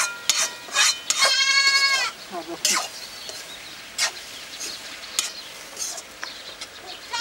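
A goat bleating once, a long wavering call about a second in, among scattered sharp clicks and knocks.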